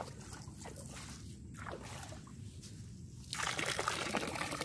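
Water splashing as a small plastic jar is dipped and swirled in shallow seawater, then poured out in a thin stream into the sea; the pour, about three seconds in, is the loudest part and lasts a little over a second.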